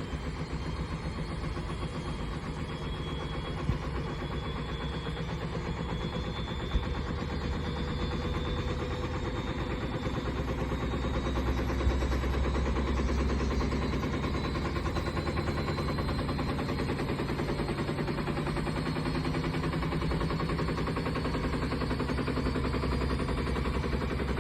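Steady, fast mechanical rattling over a low rumble, a little louder from about ten seconds in, with a few sharp clicks.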